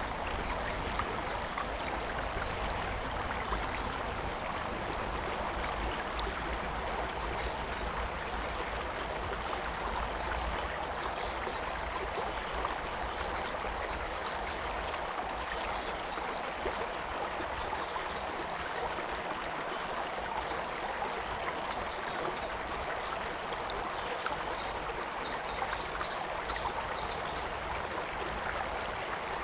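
Stream water flowing steadily, a continuous even rushing noise. A low rumble sits underneath for roughly the first ten seconds.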